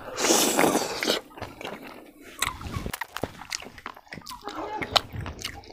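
Close-miked eating of a handful of catfish curry and rice: a loud, noisy suck as the mouthful goes in, then chewing with scattered small wet clicks.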